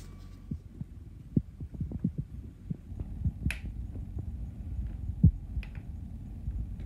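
Dull knocks and bumps of a Stokke Xplory front wheel and fork being handled on a wooden board, with a couple of sharp metal clicks as a screwdriver pries at the locking washer on the axle head.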